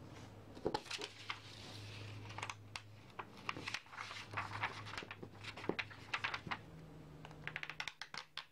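Handling noise from a wire tarp clamp with 3D-printed flexible tips: many quick small clicks and taps as it is worked and clipped onto a sheet of paper, with paper rustling, over a faint steady low hum.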